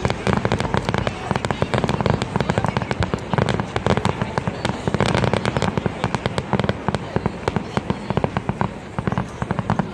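Fireworks display: a rapid, unbroken barrage of bangs and crackles, many bursts a second.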